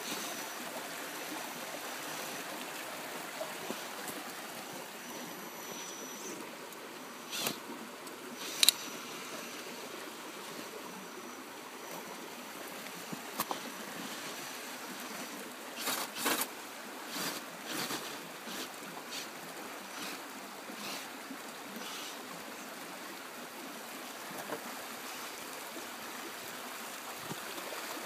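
Steady rush of a flowing stream, with scattered sharp clicks and knocks from the XR10 rock crawler's tyres and chassis on the rocks. The loudest knock comes about nine seconds in, and a cluster follows a little past the middle.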